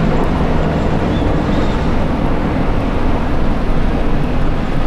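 A formation of military helicopters flying past overhead, a steady loud rumble of rotors and engines.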